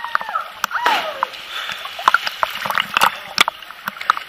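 Water slapping and splashing against a camera held at the surface of a swimming pool of river water, a run of sharp irregular slaps and drips. A short voice call sounds in the first second or so.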